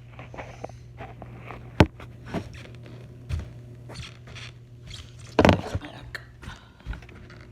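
Handling knocks and clicks, most likely from the plastic body of the Hoover Quick Broom stick vacuum: one sharp knock about two seconds in and a louder cluster of knocks and rattles about five and a half seconds in, over a steady low hum. The vacuum's motor is not running.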